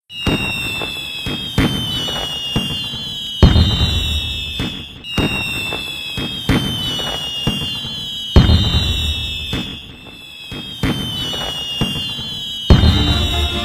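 Fireworks display: a run of sharp bangs and crackles with high whistles falling in pitch, and three especially loud booms, about three, eight and thirteen seconds in.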